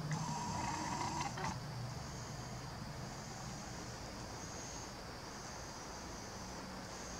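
Night insects, crickets, trilling steadily in the background. A louder, brief noise with a steady tone is heard in the first second and a half, then stops suddenly.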